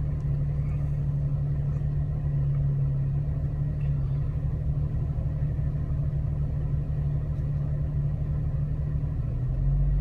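Off-road vehicle engine running steadily at low revs, a constant low rumble with no revving.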